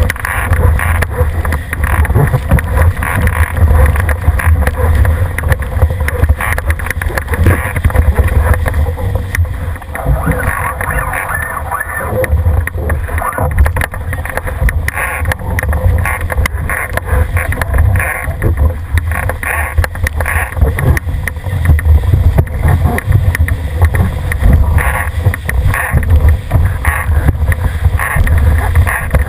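Heavy wind rumble on the microphone over the rush and splash of water along a Cherub sailing dinghy's hull, rising and falling unevenly as it sails fast through spray.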